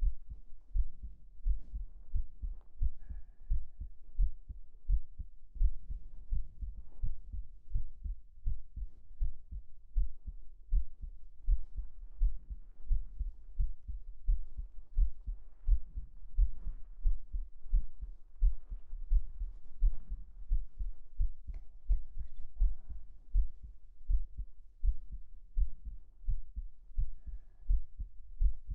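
A human heartbeat heard close up at the chest: steady lub-dub double thumps, about one beat a second.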